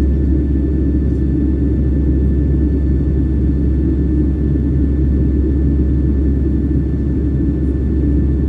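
Steady low rumble of an airliner's jet engines and airflow heard inside the passenger cabin, with a faint steady high whine above it.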